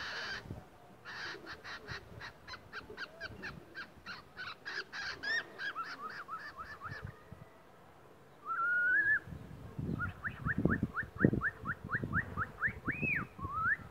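Cockatiel calling. It gives a harsh screech at the start, then a quick run of short chirps, about three or four a second. After a pause comes a longer rising whistle, then another run of short rising chirps ending in a couple of longer swooping whistles.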